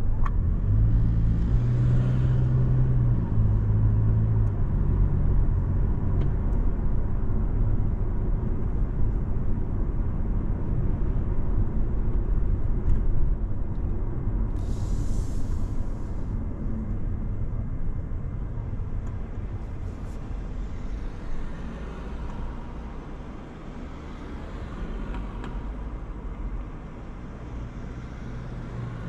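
A car's engine and tyres running on the road as a steady low rumble. The engine hum shifts pitch a few times in the first several seconds, and a short hiss comes about halfway through.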